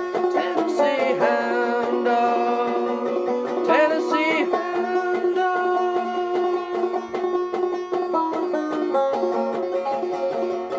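Open-back banjo played clawhammer style in open G tuning lowered a half step: a steady, rhythmic run of plucked and brushed notes with ringing open strings.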